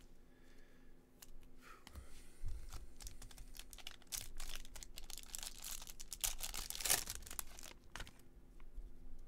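A baseball card pack's wrapper being torn open and crinkled by hand, a dense run of crackling and ripping that builds from about three seconds in and is loudest near the end before stopping.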